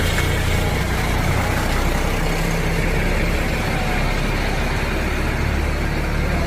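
Heavy road vehicle, a bus or lorry, running close by: a steady engine sound with road noise.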